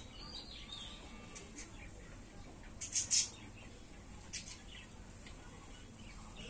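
Birds chirping in the background: a few short, high chirps, the loudest a quick cluster of three about three seconds in, over a steady low outdoor hiss.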